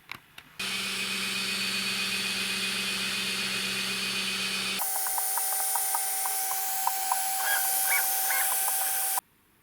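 3D printer running: a steady fan hiss with motor whine. About halfway through it changes abruptly to a different steady tone with light ticks about three a second, and near the end it stops suddenly.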